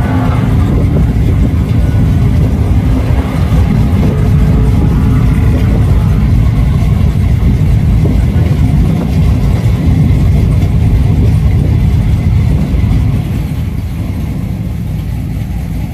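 Loud truck engine noise, a deep rumble with a faint rising rev a few seconds in, that eases to a lower level about 13 seconds in.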